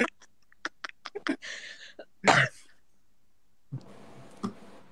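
Laughter tailing off in short, fading bursts, then one loud cough-like burst about two seconds in.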